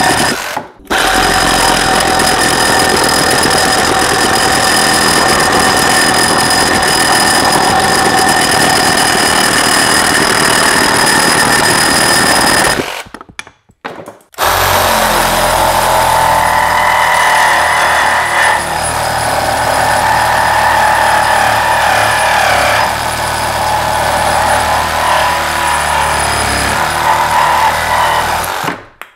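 Cordless reciprocating saw running and cutting with its steady buzzing motor whine. It stops briefly about a second in and again for a second or two near the middle between cuts, and its pitch shifts in the second half.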